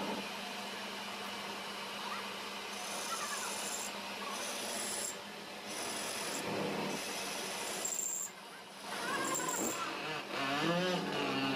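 Metal lathe running, its cutting tool turning a metal workpiece held in the chuck: a steady scraping rasp, with a high whine that comes and goes from about three seconds in until near the end.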